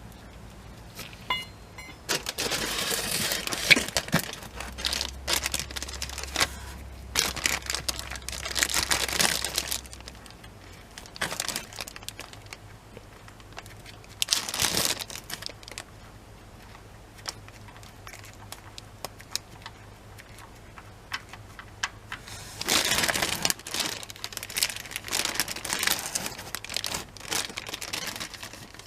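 Crinkling and rustling in several bursts of a few seconds each, over a faint steady low hum.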